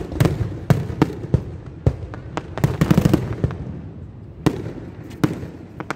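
Fireworks going off in a quick series of sharp bangs. They come thickest about three seconds in, then ease off briefly before a few more bangs near the end.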